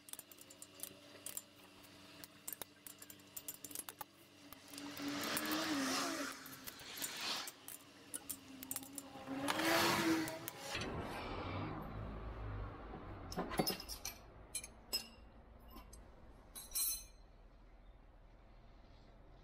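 Fast-forwarded sound of metal hand tools clinking and ratcheting as the water pump bolts are tightened, with two louder stretches of noise about 5 and 10 seconds in. About 11 seconds in it drops back to normal speed: a low hum with a few separate metal clinks.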